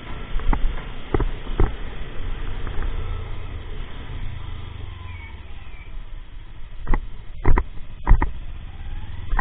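Motorcycle engine idling steadily, with a handful of sharp knocks or pops scattered through, bunched near the start and again in the last few seconds.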